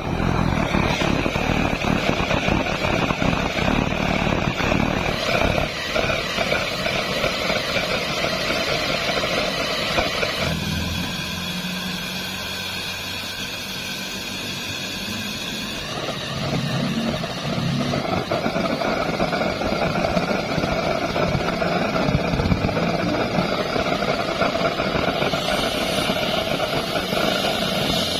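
Homemade steam-injected waste-oil burner running, its flame jet making a steady, loud rushing noise. The noise drops and changes character about ten seconds in, then builds back up as a valve on the fuel line is adjusted and the flame grows tall.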